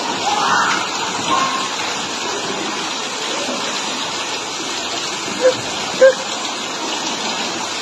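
Steady rush of water with splashing from children swimming through floodwater. Two short sharp sounds about half a second apart come near the end, the loudest moments here.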